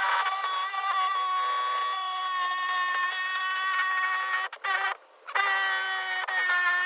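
Electric power saw running steadily with an even motor whine as it cuts through a boat's fiberglass deck. It cuts out briefly twice, about four and a half and five seconds in, then runs on.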